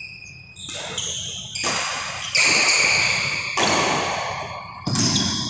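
Badminton rackets striking a shuttlecock in a doubles rally: about five sharp hits roughly a second apart, each ringing on briefly in the hall.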